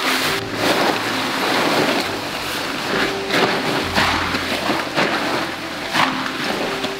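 Nylon tent fabric of a Hilleberg Nallo tent rustling and flapping as it is pulled from its bag and shaken out, with sudden loud swishes every second or so. Background music plays underneath.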